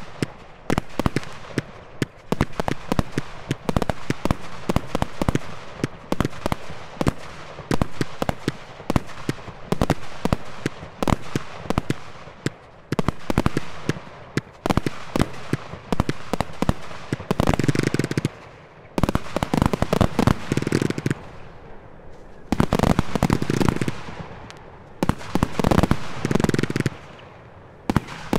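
Kill Shot 500-gram firework cake firing a rapid series of sharp shots and aerial breaks. In the last third it gets denser and louder, in several stretches of rapid firing.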